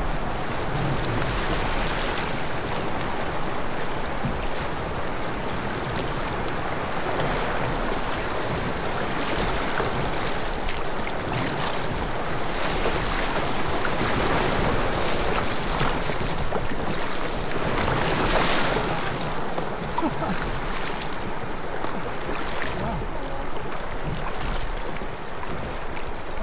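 River rapids rushing and splashing past a kayak hull, with paddle splashes and wind buffeting the microphone. The rush of water is steady and swells a little louder in the middle, where the boat runs through whitewater.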